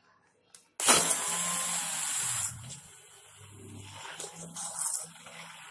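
Electric hand blender switched on about a second in, whirring loudly as it churns oil and mint water together in a steel bowl, then running quieter and unevenly for the rest.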